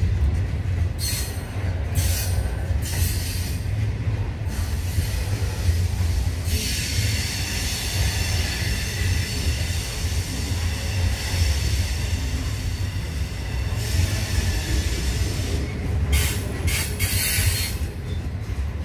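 Freight train hopper wagons rolling past with a steady low rumble of steel wheels on rail. A high-pitched wheel squeal comes and goes, with short bursts near the start, a long stretch through the middle and another burst near the end.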